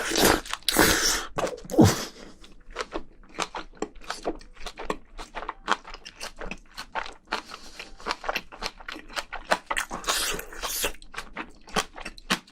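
Close-miked chewing and crunching of spicy braised seafood and vegetables (haemul-jjim): a dense run of quick, crisp mouth clicks, with a couple of longer wet bursts about a second in and again near ten seconds.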